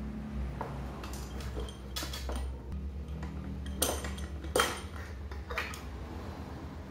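Aluminium motorcycle engine crankcase halves and metal parts being handled and set down. About six irregular metal clinks and knocks ring out over a few seconds.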